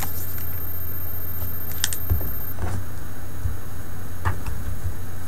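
A few light clicks and rustles of Pokémon trading cards being handled, over a steady low hum.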